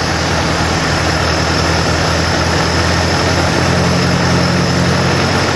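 Ford 641 tractor's four-cylinder engine running steadily on wood gas. All of its intake is drawn through the gasifier, with no air passing through the carburetor.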